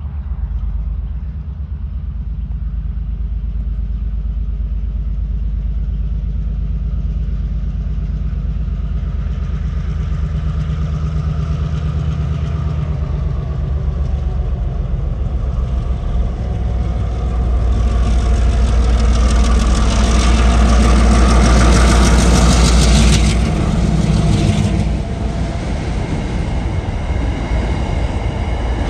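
Two TasRail 2000-class diesel locomotives hauling an empty ballast train approach with a steady engine drone that grows louder. It is loudest about three quarters of the way through as the locomotives pass close. It then eases to the rolling noise of the empty ballast wagons going by.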